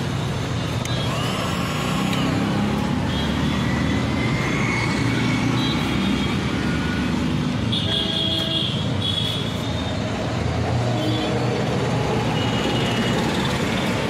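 Steady road-traffic noise: engines of passing vehicles running and swelling as they go by, with a few short horn toots, the clearest about eight seconds in.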